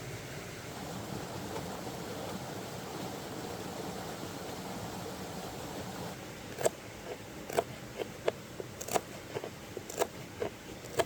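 A steady rushing background, then from about six seconds in a run of about ten sharp, irregular knocks or taps, each with a short ring.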